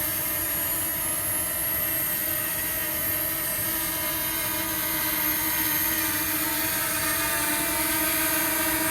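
DJI Mini 2 SE quadcopter hovering close by: its propellers and motors give a steady buzzing whine, several tones held at an even pitch.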